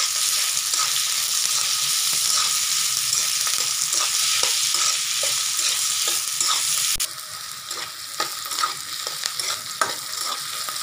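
Sliced onions sizzling in hot oil in a steel kadhai while a metal spatula stirs and scrapes them around the pan; the onions are just starting to brown. The sizzle drops sharply in level about seven seconds in, and the spatula's scrapes stand out after that.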